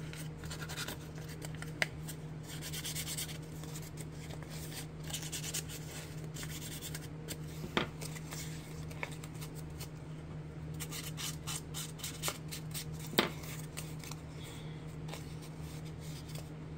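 Crumpled paper rustling and crinkling in the hands: first rubbed with a foam ink-blending tool to darken its creases, then handled and partly smoothed out. There are a few sharp ticks and a steady low hum underneath.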